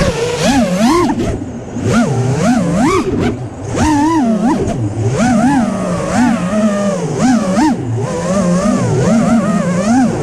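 FPV freestyle quadcopter's brushless motors whining, the pitch swooping up and down again and again as the throttle is punched and chopped.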